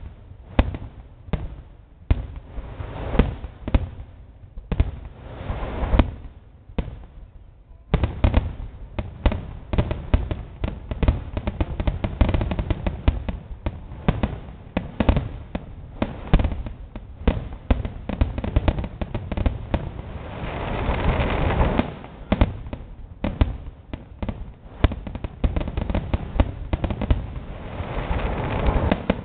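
Fireworks display: aerial shells bursting in a stream of sharp bangs, spaced out at first and nearly continuous from about eight seconds in. A swell of dense crackling comes about twenty seconds in and again near the end.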